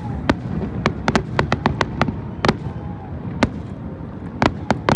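Fireworks bursting in a rapid, irregular string of sharp cracks, a dozen or more, several coming in quick clusters, over a continuous low rumble of the display and the crowd.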